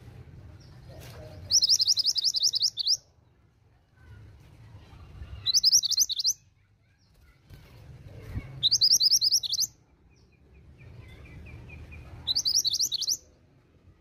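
Female mountain minivet ('mantenan gunung') calling: four bursts of rapid, high trilled notes, each about a second long, a few seconds apart.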